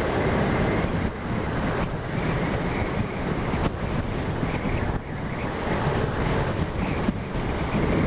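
Wind rushing steadily over the microphone of a camera on a moving Yamaha XSR700 motorcycle, with the bike's running noise underneath.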